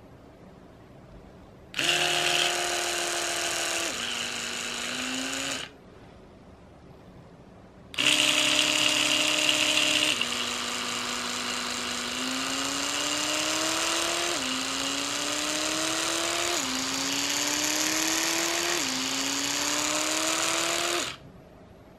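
Oral-B Smart 4 4000 oscillating-rotating electric toothbrush buzzing as it runs in the air, switched on twice: a short run of about four seconds whose pitch drops partway, then a longer run of about thirteen seconds. The longer run starts steady, drops in pitch, then rises in slow repeated ramps about every two seconds as the brush changes speed.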